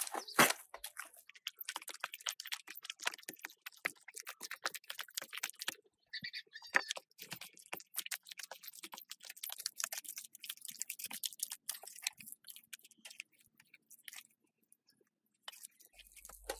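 Hands kneading and squeezing wet clay soil into mud in a plastic tub: rapid, irregular crackling and squishing. It thins out for a moment near the end, then starts again.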